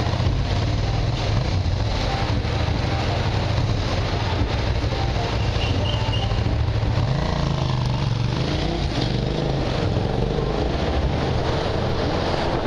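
Road traffic with a motorcycle idling close by: a steady low engine hum over general traffic noise. The hum changes about seven seconds in as traffic starts to move.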